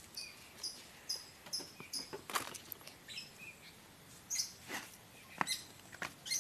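Small birds chirping: short, high chirps repeating every fraction of a second, with a few brief rustles or clicks mixed in.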